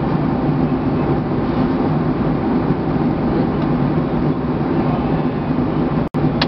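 Steady cabin noise of a Boeing 757-200 in cruise, heard inside the cabin: a low, even rush of airflow and engines. It breaks off for an instant near the end, with a click just after.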